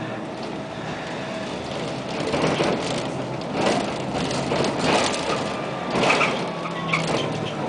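Cabin noise inside a Bogdan trolleybus on the move: a steady rumble of road noise, with short bursts of rattling and clatter every second or so from about two seconds in.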